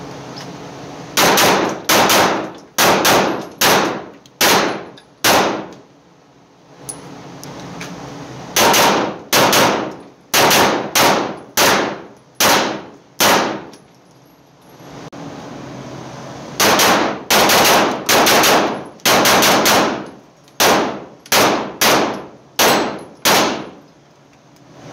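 Arex Delta Gen 2 9mm pistol fired in three strings of rapid shots, roughly two shots a second, each shot ringing in the enclosed range. A steady hum fills the pauses between strings.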